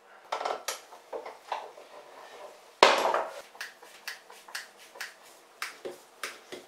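Metallic clinks and knocks of a hand tool and fittings on a boat's steering helm assembly as it is taken apart from its wooden mounting block: a dozen or so short, sharp strokes at uneven intervals, the loudest about three seconds in.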